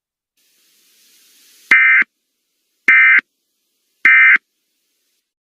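Emergency Alert System end-of-message signal: three short bursts of buzzy digital data tones about a second apart, marking the end of the alert.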